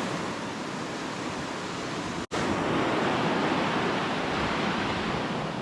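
Ocean surf washing up the beach: a steady rush of noise that swells and eases. The sound breaks off completely for an instant a little over two seconds in.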